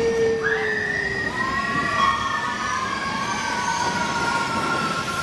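Mine-train roller coaster rolling on its track with its wheels squealing: several high tones start right away and about half a second in, then slide slowly downward over the rumble of the train.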